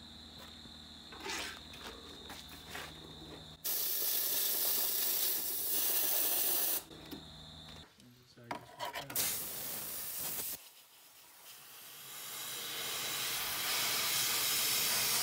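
Compressed-air blow gun hissing in bursts as it blows dust and debris off the Mercedes Sprinter's bare, rusty floor. There is one burst about three seconds long, then a short one, then a longer blast that builds up and runs on.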